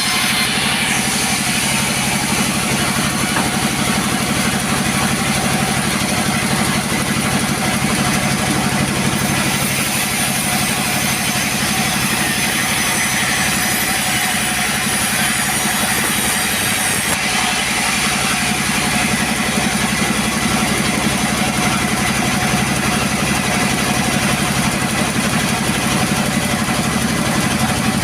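Chainsaw running steadily while cutting through wood, with a slight change in tone about two-thirds of the way through.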